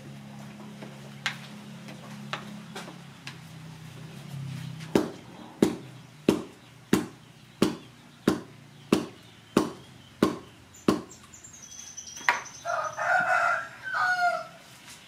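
A green bamboo tube stuffed with pork and herbs knocked down on the floor about ten times in an even rhythm, a little more than once a second, to pack the filling. Near the end a rooster crows.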